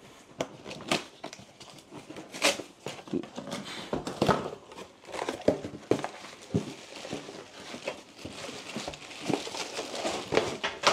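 Cardboard and plastic packaging being handled: an inner cardboard box is opened with irregular scraping, rustling and knocks of cardboard, and a plastic bag crinkles as a wrapped part is lifted out near the end.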